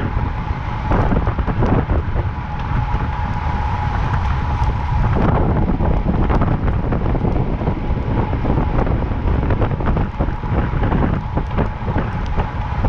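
Wind buffeting the microphone of a camera on a moving road bike, a steady low rumble mixed with tyre noise on asphalt. A thin steady whine runs underneath, and there are a few short knocks from the road.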